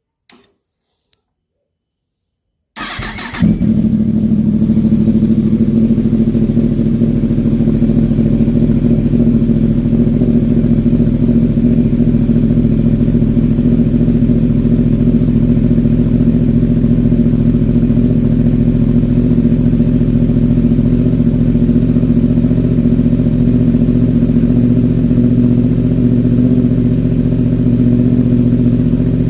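2022 Yamaha R1's crossplane inline-four, fitted with an Arrow slip-on exhaust canister, cold-started: a faint click, then a short crank of the starter a little under three seconds in before the engine catches and settles into a loud, steady idle.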